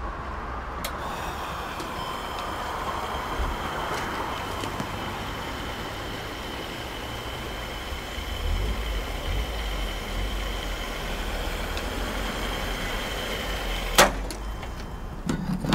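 Petrol being pumped into a van's tank through a fuel-pump nozzle: a steady rush of flowing fuel with a high, even whine from the pump. The whine ends with a sharp click near the end as the flow stops.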